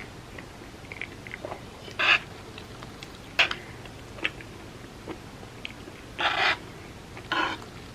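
A person chewing and biting into a dessert close to the microphone, with a few short crunchy, wet mouth noises: one about two seconds in, a sharp click halfway through, and two longer ones near the end.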